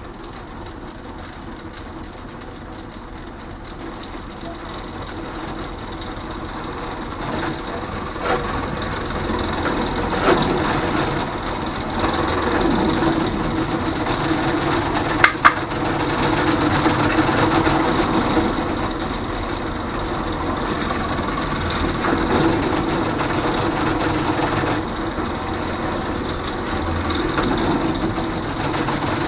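Drill press running steadily and drilling into a switch plate, growing louder over the first dozen seconds, with a few sharp clicks along the way.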